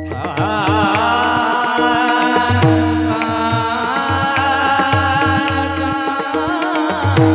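Devotional kirtan singing: a voice carries a long, ornamented melody over a steady held drone and regular hand-drum beats.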